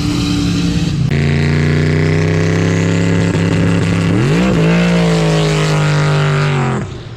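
Drag car engine held at steady high revs during a burnout, climbing to higher revs about four seconds in, holding there, then cutting off near the end. In the first second, before a cut, another race car's engine is heard with its pitch falling as it runs away.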